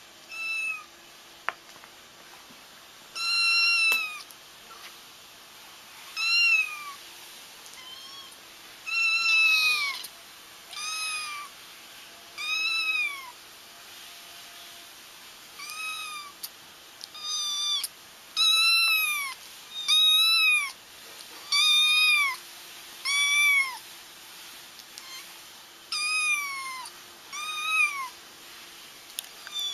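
Young kittens crying: repeated high-pitched mews, each rising and then falling in pitch, coming about every one to two seconds with short quiet gaps between. These are the distress cries kittens use to call their mother.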